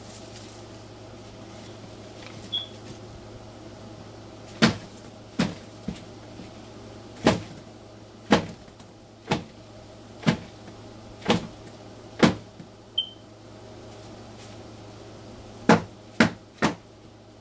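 Cardboard egg crates being knocked against the side of a roach bin to shake the Dubia roaches off. About a dozen sharp knocks, roughly one a second through the middle, then a quick run of three near the end, over a steady low hum.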